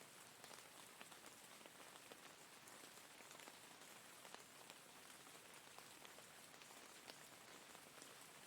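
Steady rain falling, an even hiss with many separate drop ticks scattered through it.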